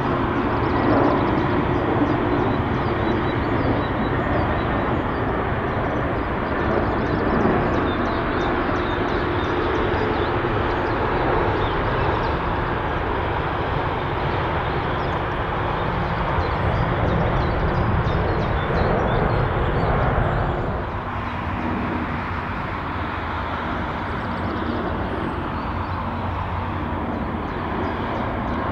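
Jet airliner noise from CFM56-powered Airbus A320-family jets: a steady rushing rumble as an A320 lands and rolls out. It changes abruptly and drops a little about two-thirds through, to the quieter rumble of an A319 on final approach.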